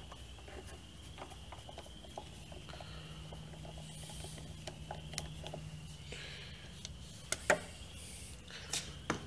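Faint small ticks and scrapes of a hand screwdriver turning a Torx T15 screw out of a plasma cutter's front panel, with two sharper clicks near the end.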